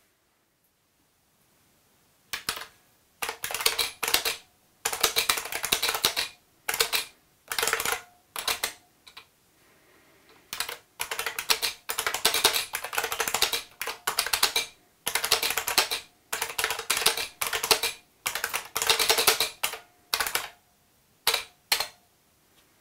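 IBM Model M keyboard's buckling-spring keys clacking under fast typing, in bursts of rapid clicks with short pauses between. The typing starts about two seconds in.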